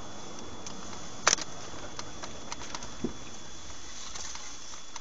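Steady road and engine noise heard from inside a moving car, with one sharp loud click about a second in and a softer knock around three seconds in.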